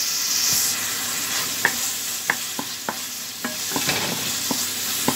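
Onion, garlic and spice paste sizzling in oil in a karahi while a wooden spoon stirs it. The sizzle is loudest in the first second. From about a second and a half in, the spoon knocks and scrapes against the pan every half second or so.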